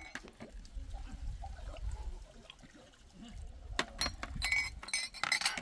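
Water splashing from the tap of a metal water tank as hands wash something under it, with a few sharp knocks and a louder splash near the end.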